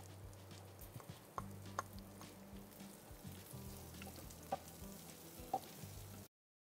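Sliced shallots sizzling as they go into hot coconut oil with ginger-garlic and chillies, stirred with a wooden spatula that gives a few light clicks and scrapes against the pan. Soft background music runs underneath, and the sound cuts out just before the end.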